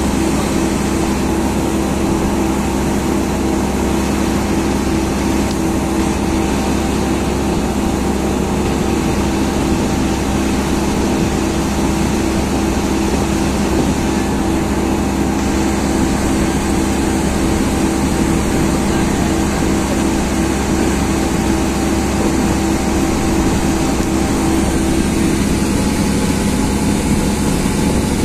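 Passenger engine boat's motor running steadily under way: a constant droning hum with an even hiss over it.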